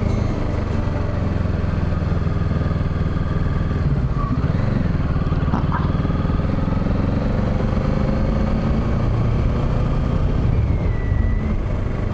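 Kawasaki Ninja 650's parallel-twin engine running steadily while riding, with wind noise over the helmet microphone.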